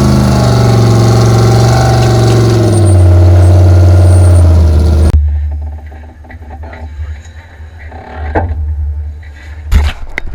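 Off-road race truck engine running hard with a loud, steady note that steps lower about three seconds in, then drops to a much quieter low rumble after about five seconds.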